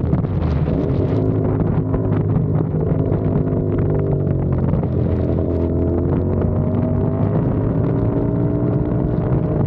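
CFMOTO 450SR parallel-twin engine running while the motorcycle is ridden. Its pitch dips near the start and again about halfway, then climbs slowly.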